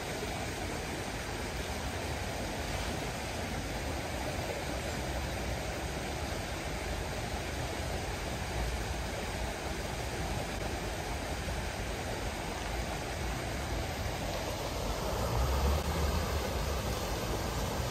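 Steady outdoor rushing noise, with a low rumble that swells about fifteen seconds in.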